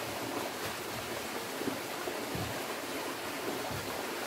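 Steady, even hiss of outdoor background noise, with no single event standing out.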